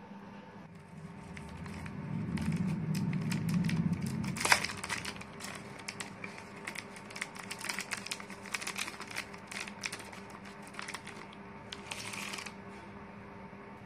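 Clear plastic jewellery packet rustling and crinkling as hands handle and open it, with a sharp snap about four and a half seconds in followed by a long run of short crackles.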